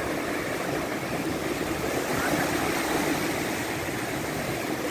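Ocean surf breaking and washing over the shallows: a steady rushing of water.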